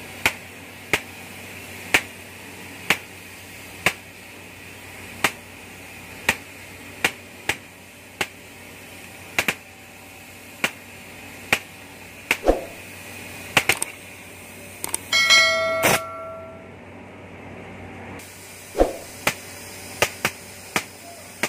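Oxy-fuel gas cutting torch cutting steel plate: a steady hiss from the cutting-oxygen jet, with sharp pops and crackles of molten slag and sparks at irregular intervals of about a second. A short ringing sound comes about fifteen seconds in.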